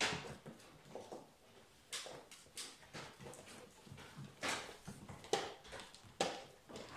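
Puppies scrambling and tugging over a rope toy on a bare wooden floor: irregular clicks and scrabbles of their claws on the floorboards, with louder bursts of scuffling a few times.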